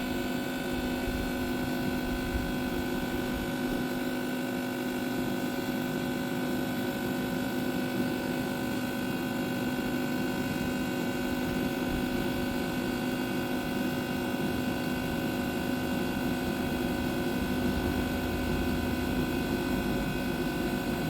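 Vertical Pit Boss pellet smoker running during startup: its fan and motor give a steady hum with several fixed tones.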